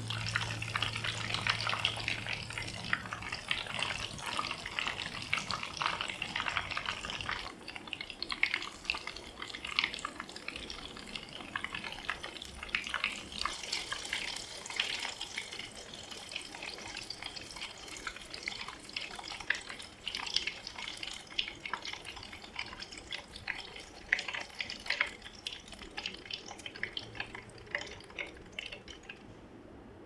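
Rolls of battered food deep-frying in a pan of oil: a steady crackle of popping oil, densest in the first several seconds and growing sparser and quieter toward the end.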